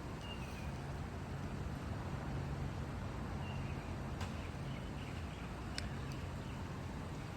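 Outdoor ambience: a steady low rumble with a few short bird chirps scattered through, and two sharp clicks, about four and six seconds in.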